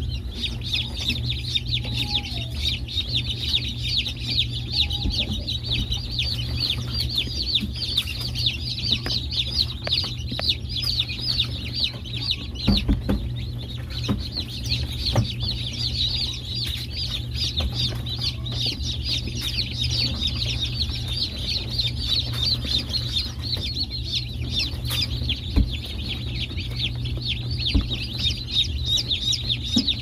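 Many young chicks peeping all at once, a constant overlapping stream of short high cheeps, over a steady low hum.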